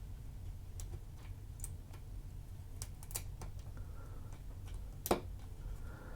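Small, irregular clicks and taps, about a dozen, from a logic chip being handled and fitted at its socket on a circuit board, with one sharper click about five seconds in.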